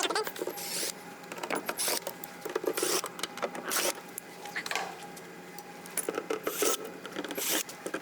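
Hand tools scraping and rubbing on boat console fittings in irregular strokes, roughly one a second, as old parts are worked loose.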